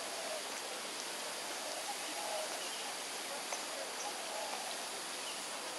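Steady outdoor background hiss with faint, distant voices rising and falling a couple of times, and a few brief, high bird chirps.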